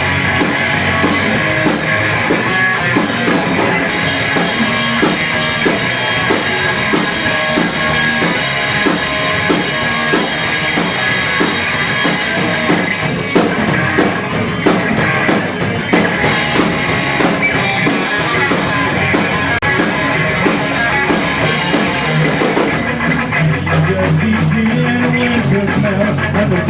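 Live rock band playing an instrumental passage with electric guitars, bass and drum kit; about 22 seconds in, the drums change to a fast, even cymbal pulse over a steady bass line.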